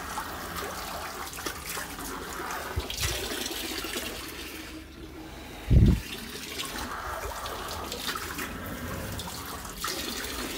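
A hose pouring water into a shallow pool in a plastic tank: a steady splashing trickle, with water dripping off a plastic lily pad. A short, loud, low thump about six seconds in.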